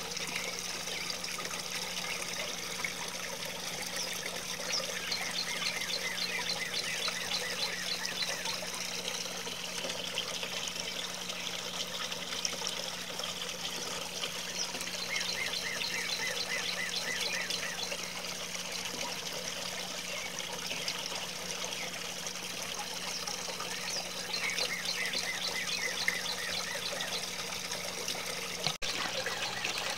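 Water steadily trickling and splattering down a rock-style garden waterfall fountain, with a steady low hum under it. A rapid series of high chirps comes three times over the splashing.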